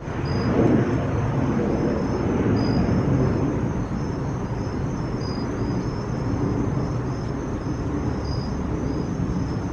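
Steady outdoor background noise, with faint high chirps repeating about once a second.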